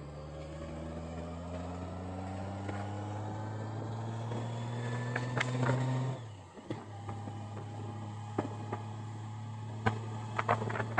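Motorcycle engine pulling up through a gear, its pitch rising steadily for about six seconds, then a brief dip as it shifts and steady cruising at lower revs.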